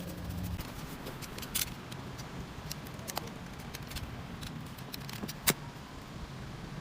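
Small clicks and scraping of tools prying apart the plastic trigger switch of a brushless electric impact wrench. There is one sharp louder click late on.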